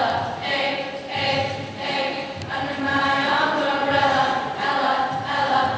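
Eighth-grade school choir, many young voices singing together in a steady rhythmic pulse.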